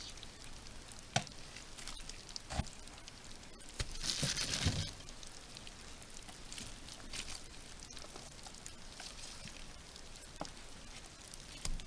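Wet worm-bin bedding with scattered soft clicks and crackles, and one louder wet rustle about four seconds in.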